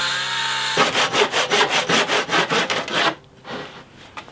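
Makita circular saw motor running steadily as it cuts through an oak beam, broken off abruptly about a second in. Rapid back-and-forth sawing strokes in the oak follow, about six a second, typical of a handsaw finishing a cut too deep for the circular saw, and they stop about three seconds in.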